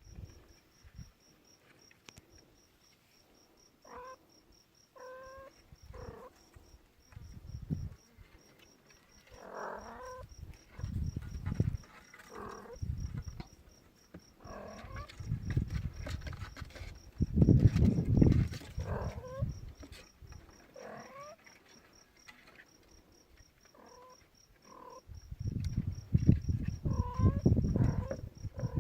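A five-week-old kitten mewing over and over in short, high, bending calls, every second or two. Low rumbling noise comes and goes between the calls, loudest around the middle and near the end.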